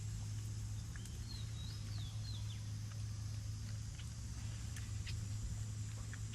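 Steady low hum with a short run of quick bird chirps about a second in, and a few faint clicks.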